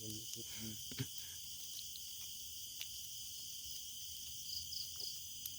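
Steady chorus of crickets, several high unbroken tones layered together, with a brief low murmur of voice at the start and a single click about a second in.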